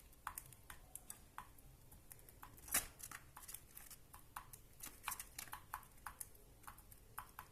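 Budgerigar cracking and husking seeds with its beak: a run of small, sharp, irregular clicks, a few a second, with one louder click about three seconds in.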